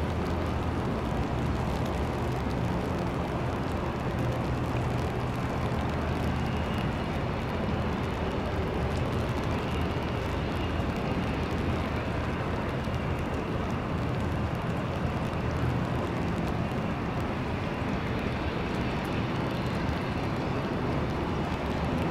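ATR 42 twin turboprop taxiing, its engines and propellers giving a steady drone with a low hum underneath. A faint high whine joins about six seconds in.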